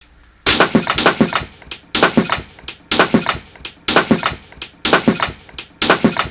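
A smashing, shattering crash sound repeated six times, about once a second, each a sharp crash followed by a few crackling clatters that die away: the same effect looped over and over.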